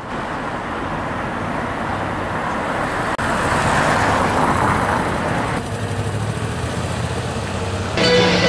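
Street traffic: cars driving along a town's main street, a steady wash of road noise. Music comes in near the end.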